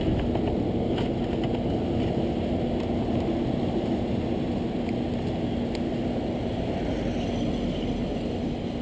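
Small automatic scooter engine idling steadily, heard close up.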